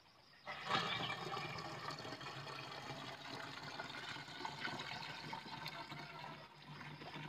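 Milky pesticide mixture poured from a bucket into the filler opening of a knapsack sprayer tank. A steady splashing pour starts about half a second in.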